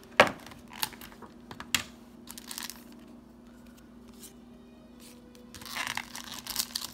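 Foil trading-card booster pack wrappers being handled and torn open: a few sharp crinkly snaps in the first couple of seconds, then steady crinkling and tearing for the last second or so.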